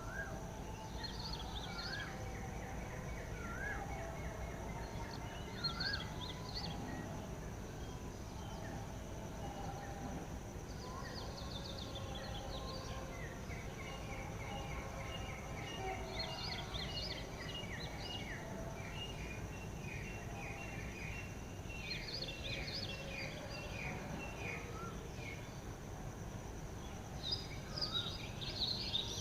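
Several wild birds calling together over a steady low rumble. One repeats a short rising whistle every couple of seconds, others give long runs of quick repeated notes and bursts of high chatter, busiest near the end.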